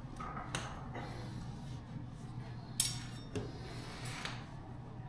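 Light handling and wiping sounds from cleaning an electric bike: a few soft knocks and rubs, with one sharper click a little under three seconds in.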